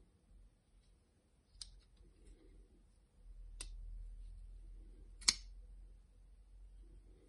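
Custom flipper folding knife with an M390 blade and titanium liners being closed and flicked open: three sharp metal clicks, the loudest about five seconds in as the blade snaps open and locks, over a low rumble from about three seconds in.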